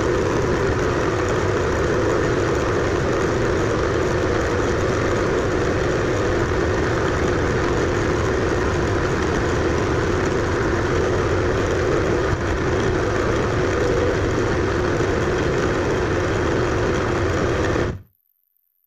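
Bridgeport milling machine running a fly cutter across the face of a metal block at 660 rpm, 0.010-inch depth of cut, played back at eight times speed: a steady, dense machining noise that cuts off suddenly near the end.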